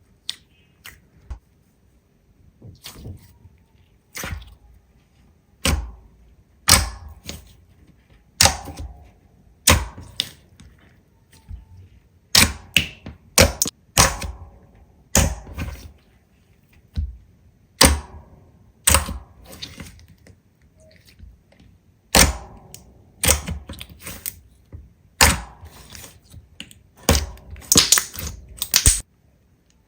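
Slime being pressed and squeezed by hand, giving sharp irregular pops and crackles, about one or two a second.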